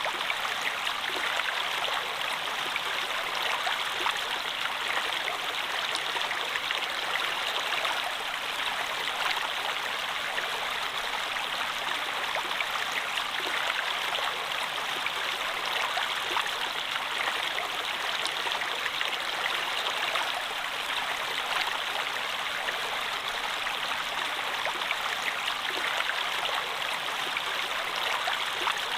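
Running water of a stream flowing steadily, an even rushing and trickling sound.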